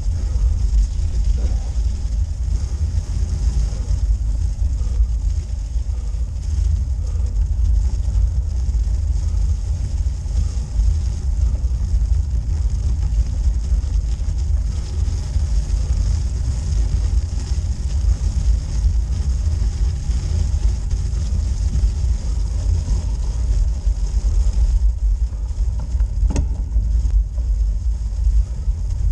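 Road bike rolling slowly uphill over a snow-covered forest road: a steady low rumble with a constant hiss from the tyres. A single sharp click comes near the end.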